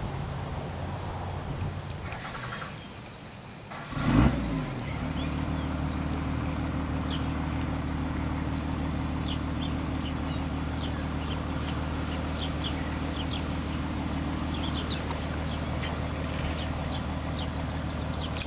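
A motor running steadily with a low, even hum. It drops away briefly, then returns after a short loud thump about four seconds in. Small birds chirp faintly over it through the middle of the stretch.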